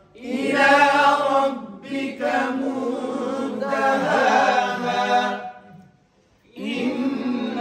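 Male voice reciting the Quran in melodic tajwid style, holding long ornamented notes. The phrases break briefly about two seconds in and pause for about a second near the end before the next phrase begins.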